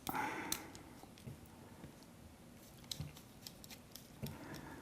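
Faint, scattered clicks and small scrapes of a screw being tightened by hand to fix a joystick to a camera-rig handle.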